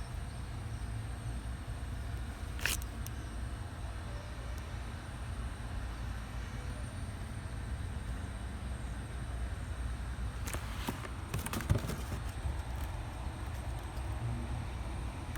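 Steady low rumble of background noise, with a few light clicks and knocks from handling parts, once about three seconds in and a few more around eleven seconds.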